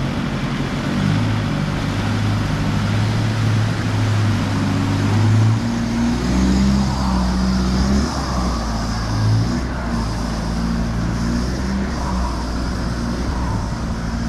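Nissan Patrol's 4.2-litre TD42 straight-six diesel running steadily under way; its note drops lower about five seconds in.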